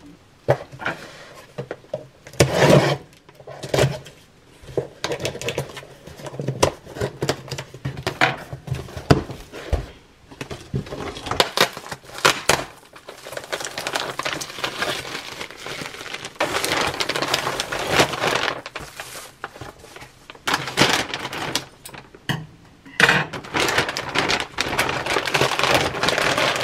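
Plastic packaging and a bubble-wrap mailer being handled and crinkled, with many short clicks and knocks as items are set down on a counter and the mailer is cut open with kitchen scissors. Longer stretches of steady crinkling come about two thirds of the way in and again near the end.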